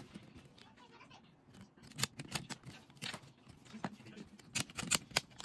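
Hard plastic clicking and tapping as a white plastic folding stand is handled and its parts are moved: irregular sharp clicks, a second or so apart at first and closer together near the end.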